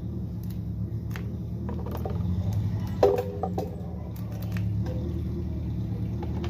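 An engine running steadily at a low, even hum, with scattered light clicks and a short louder knock about three seconds in.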